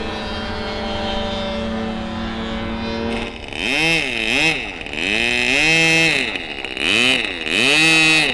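Model aircraft engine running at a steady pitch, then from about three seconds in its throttle is blipped again and again, the pitch rising and falling about five times.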